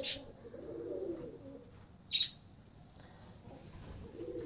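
Domestic pigeons cooing in low, humming coos, with one short, sharp high chirp about two seconds in.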